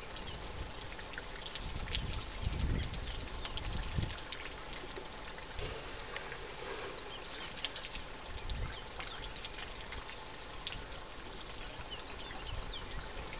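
Outdoor bush ambience: scattered short bird chirps over a steady hiss, with a few low rumbles a couple of seconds in and again later.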